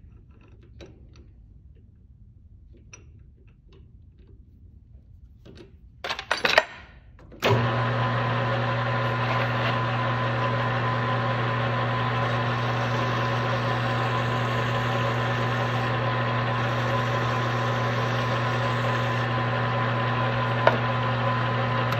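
A few light handling clicks and knocks, then about seven and a half seconds in a shop power tool's electric motor switches on and runs with a steady hum, used to chamfer the edge of a hemispherical bearing.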